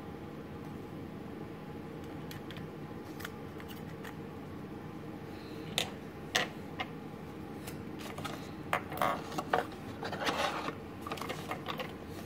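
Handling noise: a few sharp clicks and taps from metal pen parts, then paper rustling near the end as a small printed card is handled, over a steady background hiss.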